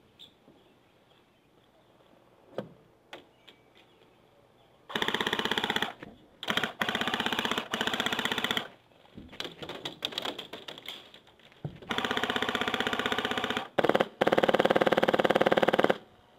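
Airsoft rifle firing several long full-auto bursts, starting about five seconds in, as a fast even rattle of shots.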